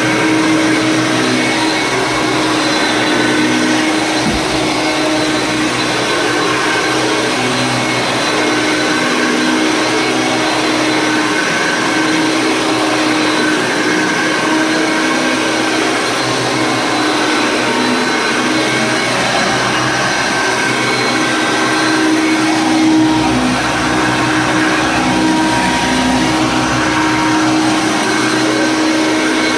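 Vintage Hoover Concept 1 upright vacuum cleaner running steadily: an even motor hum with a high whine over a rush of air. A brief low knock comes about four seconds in.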